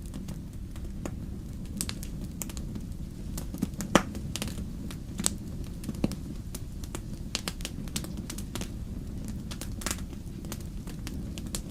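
Wood fire crackling and popping in a fireplace, irregular snaps over a low, steady rumble of the flames, with one sharper pop about four seconds in.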